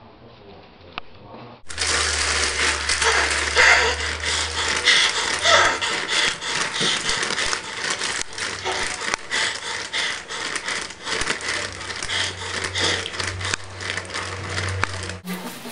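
Dense crackling and scraping noise with a low hum beneath it. It cuts in abruptly about two seconds in and stops just as suddenly shortly before the end.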